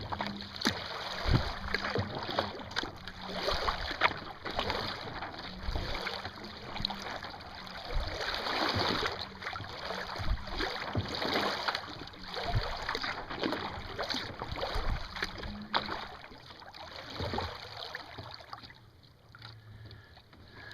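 Water splashing and washing against a moving kayak's hull in uneven swells, with sharp knocks and splashes here and there; it dies down near the end.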